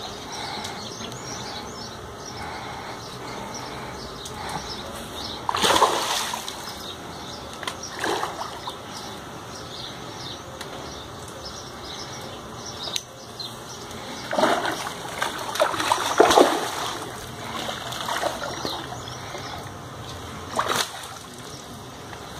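A hooked fish thrashing at the water's surface during the fight, giving a handful of irregular splashes over a steady background.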